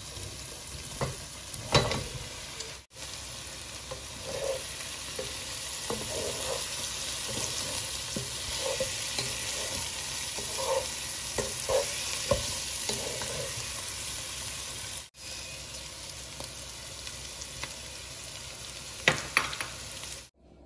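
Food sizzling in a nonstick pan as fried cauliflower florets are stirred into a spiced tomato masala with a slotted wooden spatula. The steady sizzle is broken by scrapes and knocks of the spatula against the pan.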